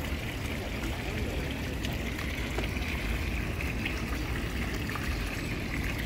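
Water pouring in a steady stream over the lip of a stone fountain bowl and splashing into the pool below.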